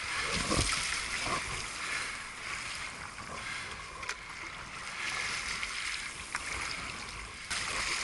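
Water sloshing and splashing around a stand-up paddleboard as it is paddled through small, choppy waves, a steady rush of water noise.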